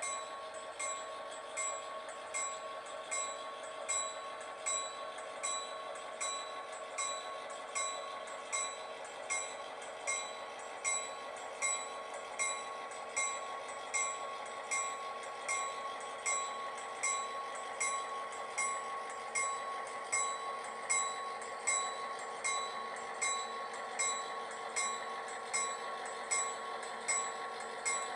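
Model diesel locomotive's sound system ringing its bell steadily, about one and a half strokes a second, over a steady electronic hum as the train rolls by.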